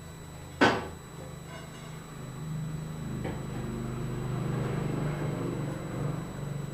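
A single sharp clank with a short ring, about half a second in, as metal parts are handled. A low steady hum sets in a couple of seconds later.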